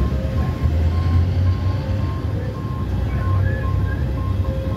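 Passenger train running, a loud, steady low rumble heard from the side of a moving coach. A repeating high electronic beep sounds about twice a second over it.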